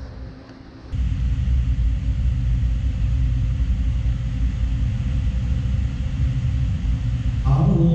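Steady low background rumble, which drops away briefly and comes back about a second in. Near the end a man's voice begins chanting on a long held note: Islamic prayer recitation in the mosque.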